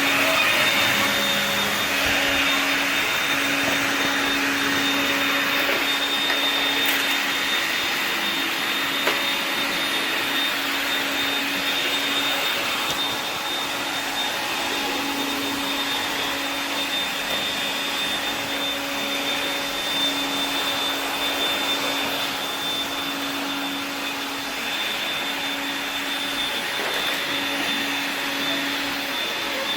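AEG CR7 cordless vacuum cleaner, fitted with a brushless motor and ESC, running steadily: a steady high whine over the rush of air.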